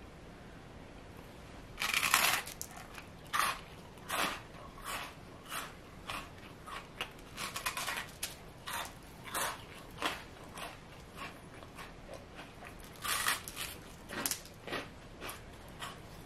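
A crisp toasted rusk spread with chocolate-hazelnut spread is bitten into with a loud crunch about two seconds in, then chewed with a string of irregular crunches. A second big crunchy bite comes about thirteen seconds in.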